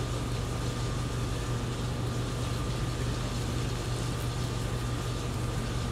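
Steady low machine hum with a faint, thin high tone above it, unchanging throughout, such as air conditioning or a refrigeration unit running in the room.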